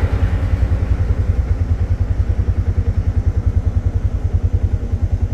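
Auto-rickshaw engine running steadily with a rapid, even low putter.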